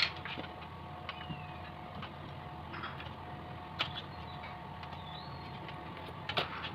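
Small clicks and taps of hands handling wiring and metal parts on a generator engine being taken apart, over a steady background hum; the clearest taps come about four seconds in and as a short cluster near the end.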